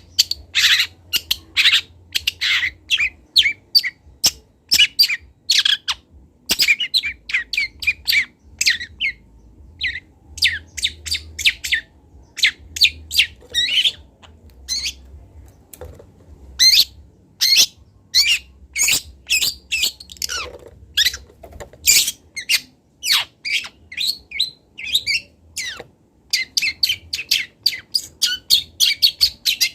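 Young long-tailed shrike (cendet) practising its song: a rapid, continuous string of short, sharp chirps and calls with a few brief pauses.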